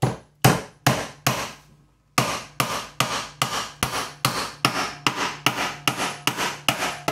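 Wooden-handled hammer driving a wire nail into the end grain of a timber block. A handful of spaced blows, a brief pause about two seconds in, then a fast, even run of about four to five blows a second.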